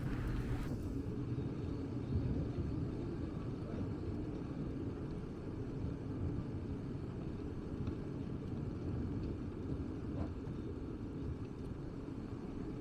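Steady low rumble of outdoor street ambience, with no distinct events standing out.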